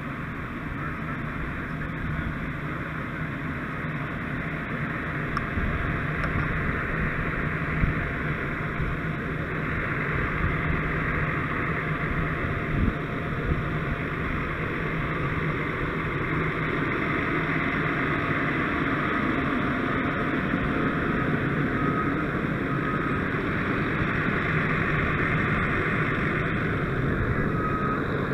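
Fire engine's engine running steadily at the fireground, a constant mechanical drone. A vehicle's reversing alarm beeps faintly near the end.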